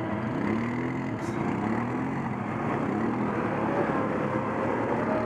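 ATV engines running, the pitch rising and falling with the throttle, then settling into a steadier, higher note in the second half.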